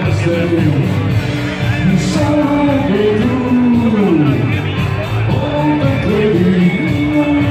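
Live rock band playing, with a man singing over electric guitars, bass and drums.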